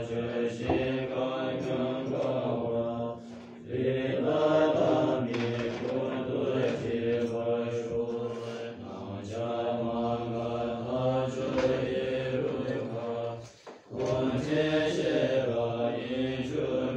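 Buddhist monks chanting a prayer together in unison, in low, sustained voices with a deep drone underneath. The chant breaks off briefly twice and resumes.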